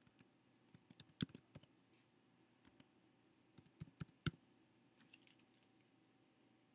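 Computer keyboard being typed on: an irregular run of about fifteen key clicks over roughly five seconds, then it stops.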